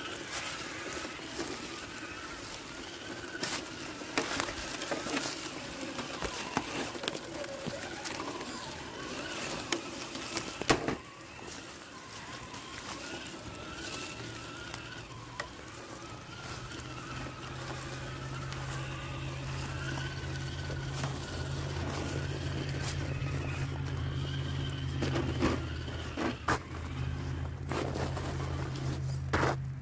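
Associated Electrics Element Trailrunner RC crawler driving over rough ground: its small electric motor whines, rising and falling with the throttle, among scattered knocks and clatter. From about halfway through, a steady low hum joins in.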